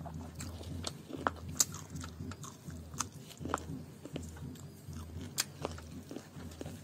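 Close-up chewing of chicken curry and rice, with wet mouth clicks and smacks at irregular intervals.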